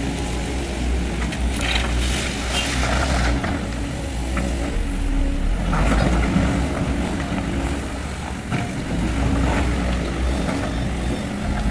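SANY SY215C hydraulic excavator's diesel engine running steadily under work, with a few short noisier bursts over it, about two, six and nine seconds in.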